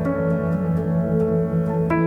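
Background instrumental music: soft plucked guitar and piano notes over a sustained low tone.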